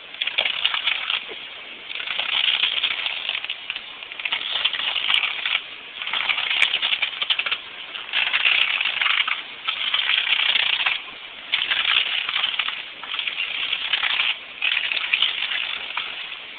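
A car tyre grinding a circuit board against gritty pavement, a harsh crunching scrape in about nine bursts of a second or so each with short pauses between, as the wheel is worked back and forth over the board.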